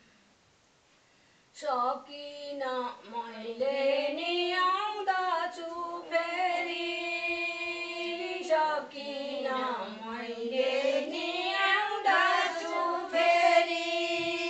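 Women singing a Nepali sangini folk song together, unaccompanied, with long gliding melodic lines. The singing starts after a short pause about a second and a half in.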